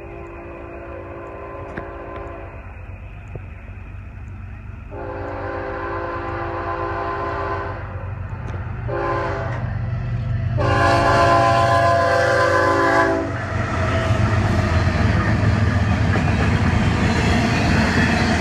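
Florida East Coast Railway GE ES44C4 diesel locomotive's air horn sounding the grade-crossing signal as the train approaches: long, long, short, long, the last blast the loudest. From about 13 seconds in, the locomotives and intermodal well cars pass close by with a steady rumble and wheel-on-rail noise.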